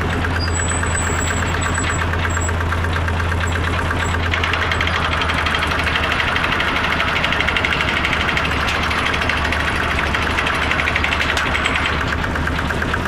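Engine of a boring machine running steadily at a constant speed, with a deep hum and a fast, even pulsing.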